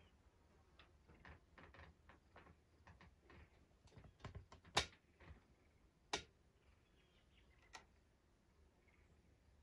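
A quick run of faint clicks and taps over the first five seconds, ending in a sharp knock about five seconds in, then another knock a second and a half later and a lighter click near the end, against near silence.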